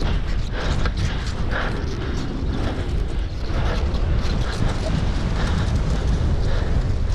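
Skis scraping over packed snow in a quick series of turns, each turn a short hiss. Wind rumbles on the microphone throughout.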